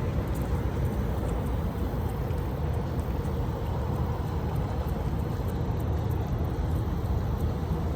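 Steady low rumble with a faint steady hum, no distinct events.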